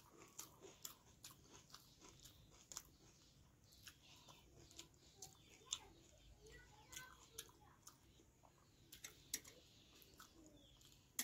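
Faint, close-up chewing and wet mouth clicks of a person eating rice and chicken curry by hand, in scattered short smacks with quiet between them.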